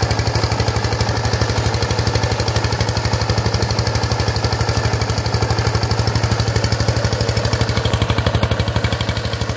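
Power tiller's single-cylinder diesel engine running under load with a fast, even thudding beat as it pulls a rotary cultivator through dry soil.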